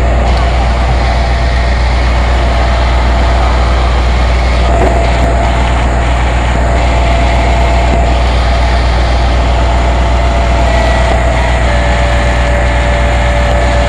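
Fire truck engine running with a loud, steady low rumble.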